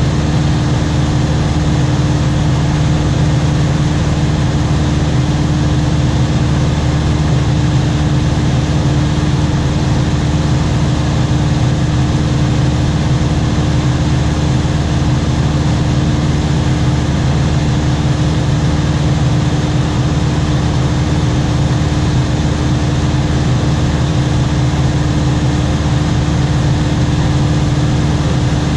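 Aircraft engine droning steadily during flight: a constant low hum with a steady tone above it, unchanging in pitch and level.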